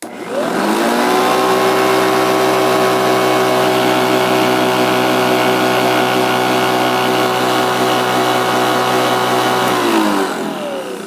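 Hoover Professional Series CH520 commercial upright vacuum switched on, its motor whining up to speed within about a second and running steadily at full power. About ten seconds in it is switched off and winds down with a falling whine.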